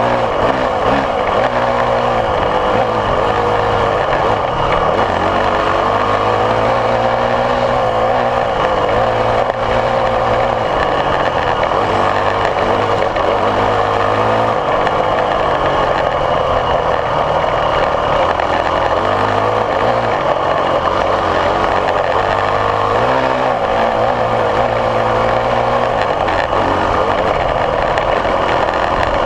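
Off-road dirt bike engine running under way on a dirt trail, the revs rising and falling as it rides.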